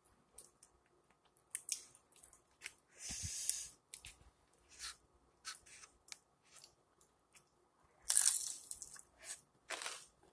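Close-up eating sounds: biting into and chewing chicken flautas topped with shredded lettuce, with many small crackles and clicks. There are two longer, louder crunches, about three seconds in and about eight seconds in; the second is the loudest.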